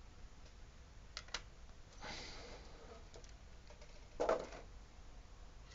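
Clear plastic blister packaging and figure parts handled by hand: two light clicks, a rustle about two seconds in, then a louder short plastic clatter about four seconds in.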